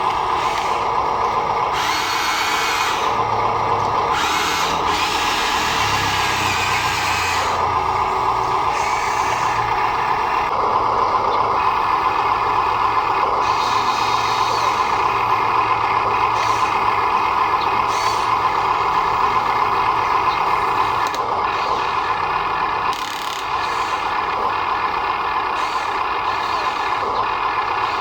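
Small electric motors and gearboxes of radio-controlled construction models whining steadily as the machines work, with brief extra high-pitched grinding in the first several seconds.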